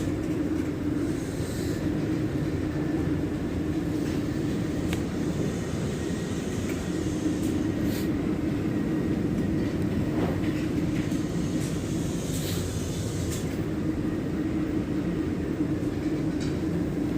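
Steady low drone of a ship underway, its engine and machinery running without a break, with a few faint clicks and knocks.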